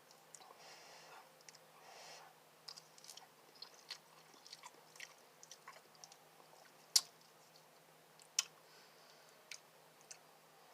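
A person chewing spicy instant noodles close to the microphone: quiet, wet mouth clicks and smacks, with a sharper click about two-thirds of the way through.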